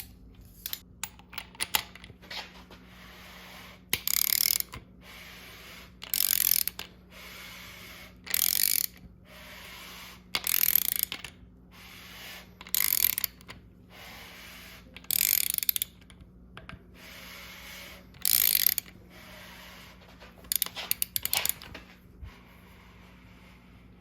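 Hand ratchet wrench being worked in repeated strokes: a few single clicks, then about eight short runs of rapid ratchet clicking, roughly one every two seconds.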